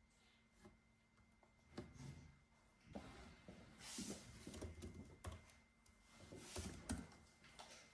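Quiet desk-work sounds in a small room: a few soft, irregular clicks and knocks with brief rustles in between, rather than a steady run of typing.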